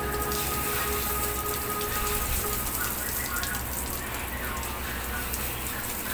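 Water spraying from a hose nozzle onto a wet Shih Tzu and the wire cage it stands in: a steady hiss and patter like rain. Background music fades out in the first couple of seconds.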